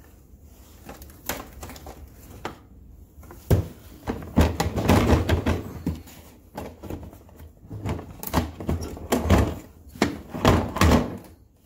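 Hard plastic Ryobi LINK modular tool boxes being pushed, slid and knocked together by hand to test the latch that locks one onto another, which is not catching consistently. Faint clicks at first, then from about three and a half seconds in, repeated clusters of plastic clunks, scrapes and thunks.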